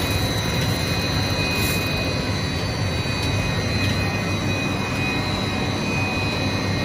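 Air bubble film making machine running in the factory: steady machine noise with a low hum and two constant high-pitched whines.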